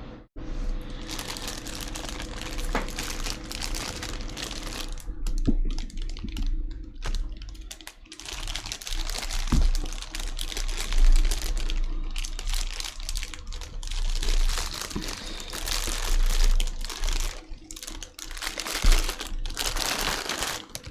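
Plastic packaging crinkling and rustling as a boxed figure is unwrapped, with scattered light clicks from handling.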